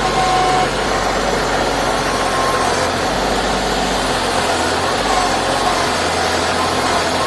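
Heavy equipment engine running steadily at a low, even pitch.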